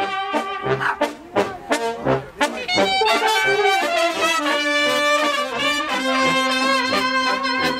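Brass music: trumpets and trombones playing a melody of held notes over a steady beat.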